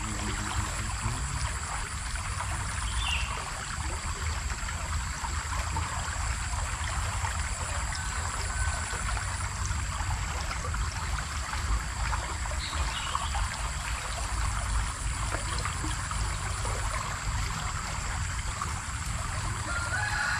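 Small river running steadily, with a continuous trickling hiss of water, a low rumble underneath and a thin, steady high-pitched whine. A few faint short chirps come and go.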